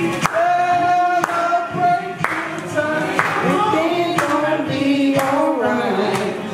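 A woman singing into a handheld microphone, drawing out long, wavering notes, over a steady beat about once a second.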